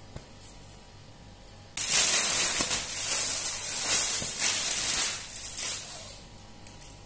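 Clear plastic packaging around a folded suit crinkling and rustling as it is handled and moved. The sound starts abruptly about two seconds in, lasts about four seconds, and then dies away.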